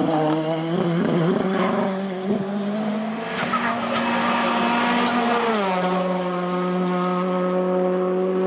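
Hillclimb race car engine running hard at high revs, its note stepping up about three seconds in and gliding down about five and a half seconds in, then holding steady.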